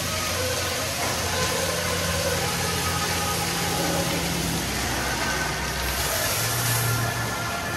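WashBot Transformer 3XM in-bay automatic car wash machinery running: a steady motor hum under an even hiss of air and water. The hum changes pitch partway through.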